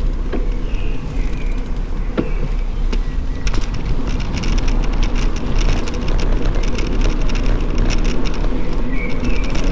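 A bicycle rolling over asphalt: a steady rumble of tyres and wind on the microphone, with quick clicks and rattles from the bike that grow busier after about three and a half seconds.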